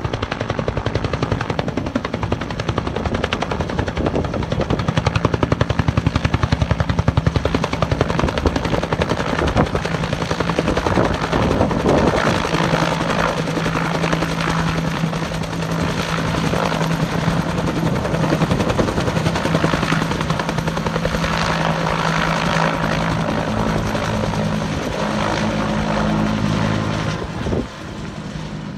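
Firefighting helicopter flying close by, its rotor blades chopping rapidly and loudly. A steady engine hum rises under the chop partway through, and the sound drops off near the end.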